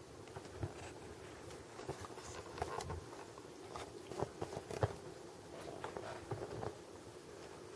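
Munchkin cat's fur rubbing and bumping against the phone's microphone: soft scratchy rustling with scattered taps, the sharpest two about four and five seconds in.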